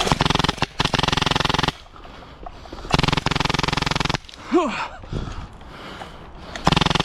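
Airsoft M249 support gun, HPA-powered by a Polarstar Jack engine, firing long full-auto bursts as rapid, even clicking: a burst of about a second and a half, another about three seconds in, and a third starting near the end. Between the bursts comes a short rising-then-falling cry.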